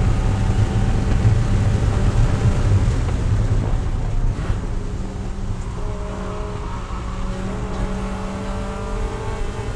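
Mazda Miata race car's four-cylinder engine heard from inside the cockpit, running hard at full throttle near 110 mph. About four seconds in it drops off under braking, and the engine note changes as it is downshifted for a corner.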